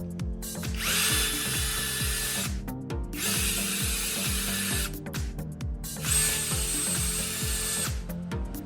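Power drill running in three bursts of about two seconds each, with a steady whine, over background electronic music with a steady beat.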